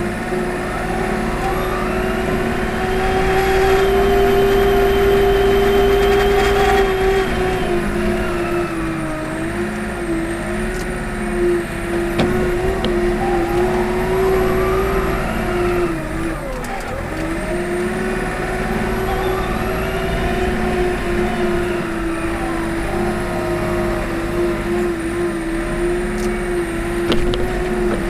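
Komatsu WA40 mini wheel loader's diesel engine running steadily as it works clearing snow, its hum louder for a few seconds early and dipping briefly in pitch a couple of times as the load changes.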